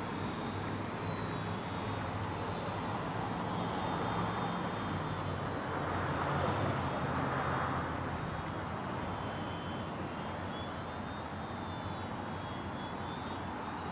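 Electric motor and propeller of a ParkZone T-28 Trojan Ultra Micro RC plane in flight: a thin high whine that drifts in pitch and swells as the plane passes about halfway through, then fades, over a steady low hum.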